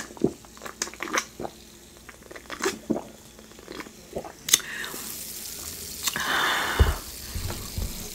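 Close-miked mouth sounds of drinking a cold drink from a glass mug: sipping, wet clicks and swallows in the first seconds, then a longer breathy noise with low thuds about six to seven seconds in.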